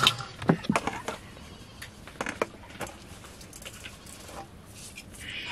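Steel bowl and cooking pot being handled while washed rice is tipped from one to the other: a run of sharp metal knocks and clinks in the first few seconds, then quieter.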